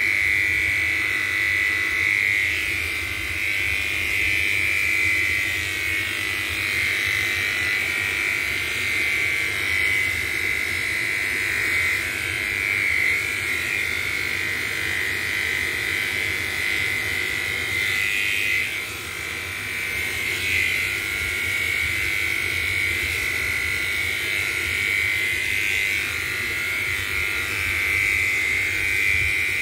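Electric pet clippers buzzing steadily as they shave a cat's coat, the buzz dipping briefly about two-thirds of the way through.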